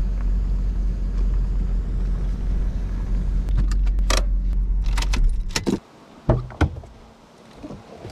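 2008 Volvo XC90's engine running steadily at low speed while being backed into a parking spot. A few seconds in come a run of light clicks and jingles, then the engine shuts off suddenly about five and a half seconds in, followed by two sharp knocks.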